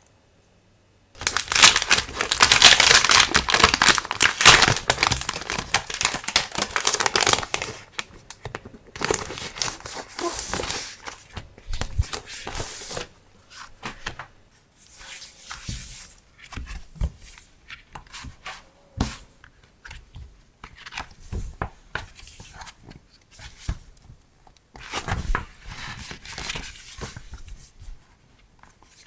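Packaging being handled and opened: several seconds of loud, continuous crinkling and tearing, then shorter intermittent rustles and light clicks.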